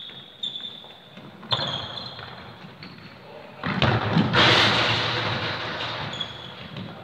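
A football being kicked and bouncing on a sports hall floor, with a loud impact about four seconds in that echoes and fades over the next couple of seconds.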